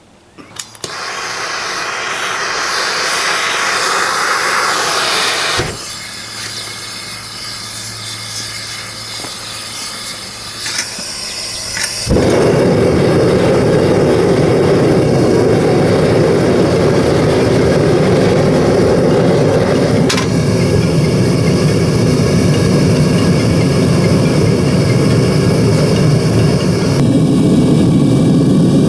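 Propane-fired melting furnace: a gas hiss for the first few seconds, then a quieter stretch with a low blower hum, and about twelve seconds in the burner lights and runs with a loud, steady jet-like rush.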